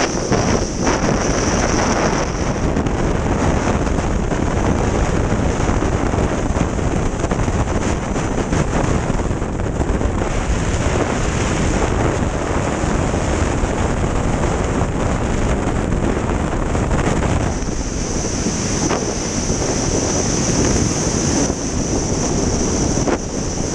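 Skydiving freefall wind rushing over a GoPro camera's microphone: a loud, steady rush of noise, with a high hiss in it at the start and again from about two-thirds of the way through.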